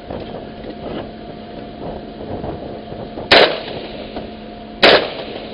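Two gunshots about a second and a half apart, each a sharp crack that stands well above a steady hum.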